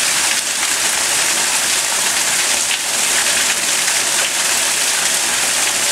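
Water pouring into a flooded basement, a steady splashing rush as it falls into the standing water on the floor.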